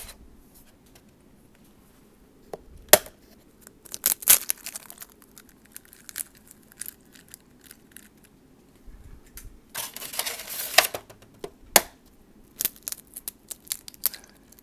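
Raw eggs being taken from a carton and cracked into a plastic shaker cup: scattered sharp taps and cracks, with a stretch of rustling near the middle.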